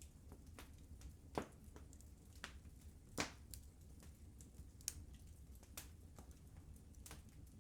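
Wood fire crackling in a fireplace: irregular sharp pops and snaps, the loudest about one and a half and three seconds in, over a faint low rumble of the flames.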